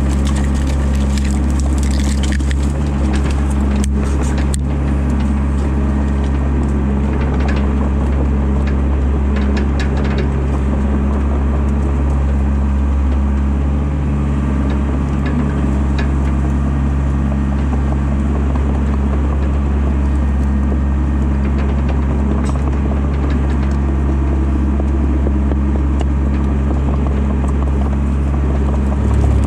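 Excavator's diesel engine running steadily under load, heard from the cab, with sharp cracking and snapping of branches and brush being crushed by the bucket, mostly in the first ten seconds.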